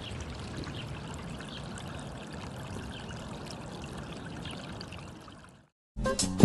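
Shallow water flowing steadily over a low ledge, fading out about five and a half seconds in. After a brief gap, music with a heavy bass beat starts just before the end.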